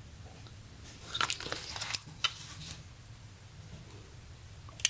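Handling noise of a pair of sunglasses and their cardboard hang tag: a cluster of short, sharp clicks and crinkles about a second in, lasting about a second and a half, with one more click at the very end.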